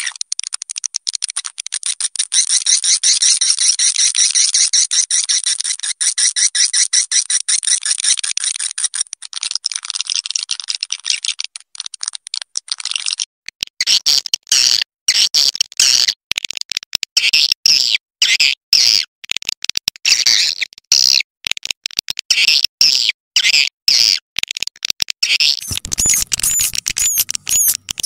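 Swiftlet lure call (suara panggil walet): dense, rapid, high-pitched twittering of swiftlets, the recording played from speakers to draw swiftlets into a swiftlet house. About halfway through it turns choppy, broken by many short gaps, and near the end repeated rising chirps come in over a low rumble.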